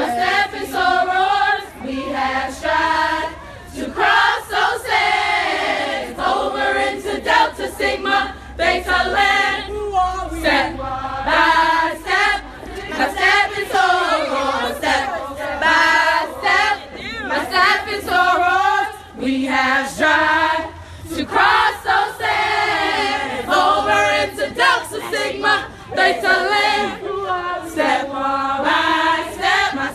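A group of women singing together in unison without instruments, in sung phrases with short breaths between them.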